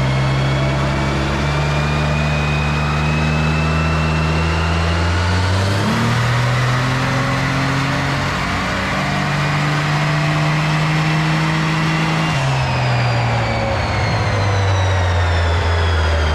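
Twin-turbocharged Mitsubishi V6 in a front-wheel-drive automatic Dodge Stratus making a full-throttle pull on a chassis dyno. The engine note climbs steadily, drops with a gear change about six seconds in, and climbs again. It then falls away as the pull ends about twelve seconds in, with a high whine above it that rises and falls with the engine.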